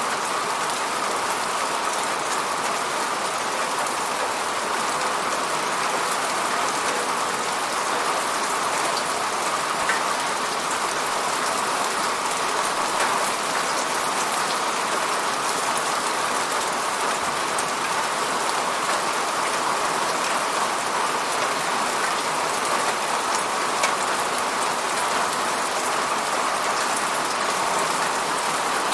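Steady rainfall, a dense even hiss of drops with fine scattered pattering.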